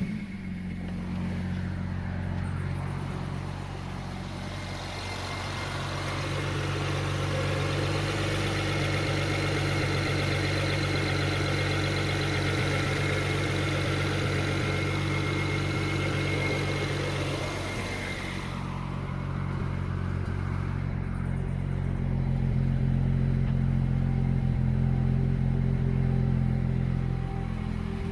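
BMW N54 twin-turbo inline-six running at idle after a start. A hiss rides over the engine for much of the first two thirds and cuts off suddenly, leaving the steady idle.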